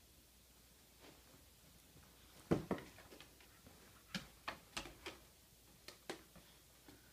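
Two whippets, a puppy and an older dog, tugging a plush toy: scattered taps and knocks of paws and claws on a blanket and wooden floor. The loudest is a thump about two and a half seconds in, followed by a run of quicker taps around four to five seconds in.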